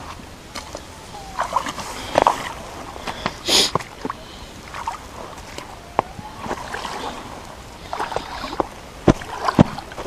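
Rubber boots wading through a shallow river: irregular splashing and sloshing of water around the boots with each step, with a few sharp knocks near the end.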